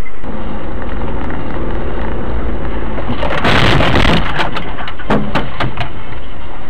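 Car driving, recorded from inside with a dashcam: loud steady road and engine noise. About three and a half seconds in comes a sudden rush of noise lasting about a second, followed by several sharp knocks.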